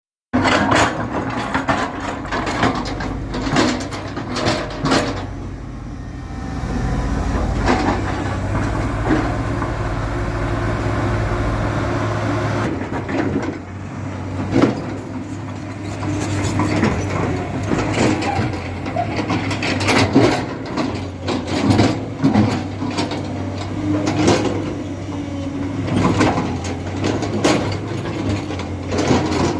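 JCB 3DX backhoe loader's diesel engine running under load, with frequent short clanks and knocks from the bucket and arm as it works. The engine drone holds steadier and heavier for several seconds in the middle.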